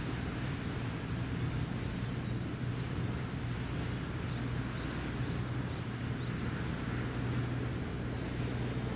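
Steady low drone of a boat engine running, with a small bird's twittering call heard twice, each about a second and a half long, once early and again near the end.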